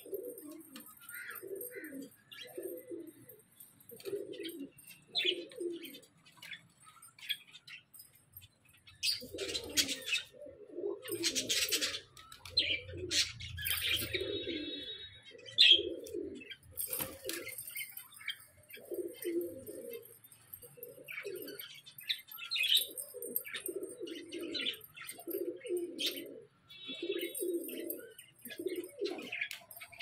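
Doves cooing over and over, a low call about once a second, with budgerigars chirping and chattering higher up among them.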